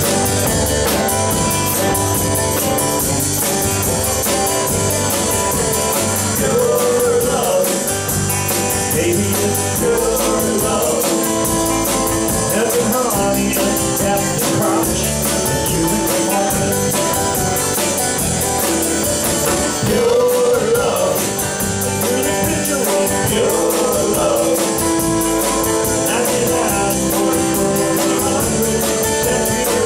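Small live rock band playing a song: electric guitar and drum kit, with a singer's vocal line coming and going over the band.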